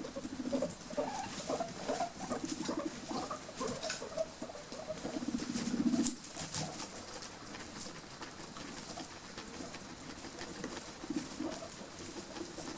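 Guinea pigs making a low pulsing purr, loudest about five seconds in and again near the end, with short soft squeaks in the first half. Light crackling of hay or bedding as they move about.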